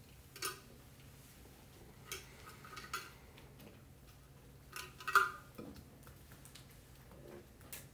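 A few scattered light clicks and clinks of small hard objects being handled, the loudest about five seconds in.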